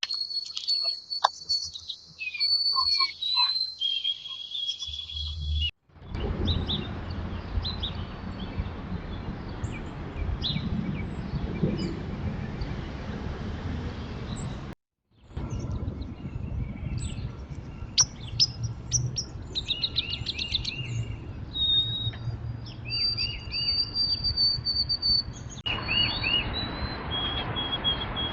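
Backyard songbird singing: repeated chirps and short held whistled notes, over a steady low rumble in the later part.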